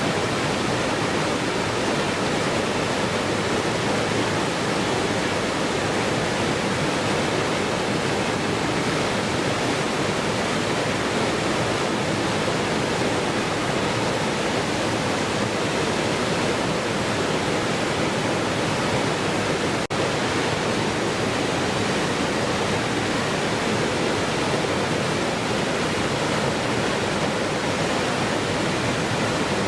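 Waterfall rushing in a steady, even roar of falling water, with one momentary dip about two-thirds of the way through.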